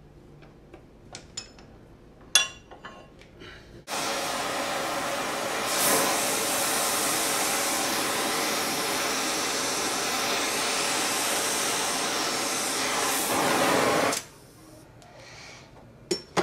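Gas torch flame hissing steadily for about ten seconds, starting abruptly and cutting off, as it heats a steel crank web to expand it for a shrink fit onto the crankshaft. A few light metal clicks come before it, and a sharp clank near the end.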